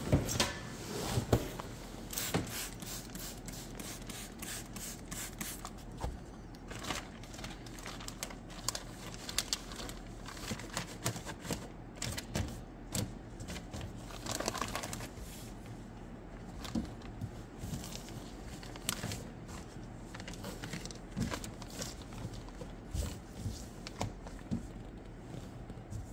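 Thin plastic template film crinkling and rustling as it is handled and pressed onto a truck's wet rear window, with scattered light clicks and knocks.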